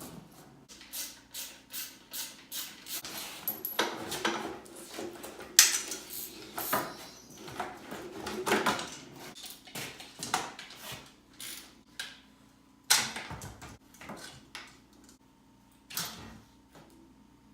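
Irregular knocks, clicks and scraping of parts being handled on a workbench, with a sharper knock about halfway through.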